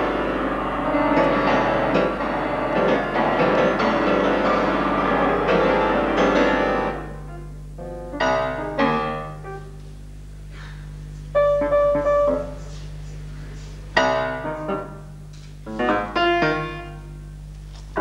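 Solo grand piano playing a contemporary piece: a dense, busy passage for about seven seconds, then separate loud chords struck one by one, each left to ring away in pauses between them. A steady low hum runs underneath.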